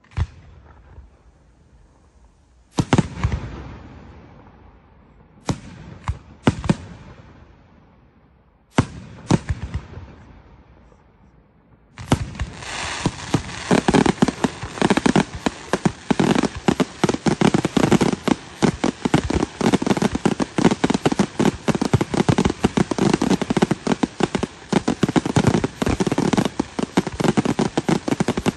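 Aerial firework shells bursting one at a time, each sharp bang trailing off in crackle, some in quick pairs. About twelve seconds in, a dense barrage of rapid-fire bangs and crackling starts and keeps going without a break.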